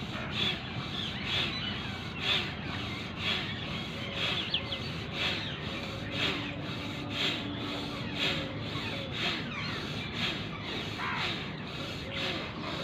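Forceful rhythmic breathing of bhastrika pranayama, each breath pushed fully out and drawn fully in, at a steady pace of about one in-and-out breath per second.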